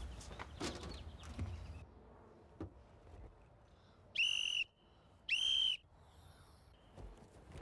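A hand-held whistle blown in two short, steady, high-pitched blasts, each about half a second long and about a second apart.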